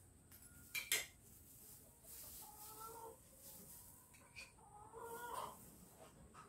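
Chickens calling in the background: a few short pitched calls about two and a half seconds in and again around five seconds. A single sharp knock about a second in.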